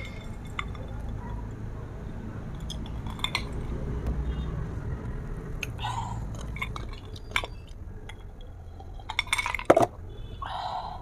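Eating and drinking noises: a sip from a glass, glass clinks and chewing, with scattered small clicks and a quick cluster of knocks about nine seconds in, the loudest part.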